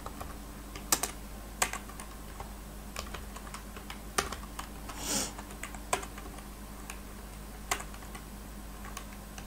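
Computer keyboard keystrokes, a few separate taps spaced irregularly, as code is typed slowly, over a faint steady low hum.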